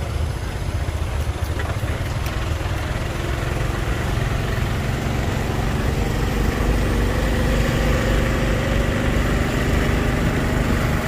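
A motorbike riding slowly past queued traffic, its engine running under a steady low rumble of road noise and idling vehicles. About halfway through, an engine tone starts to rise slowly.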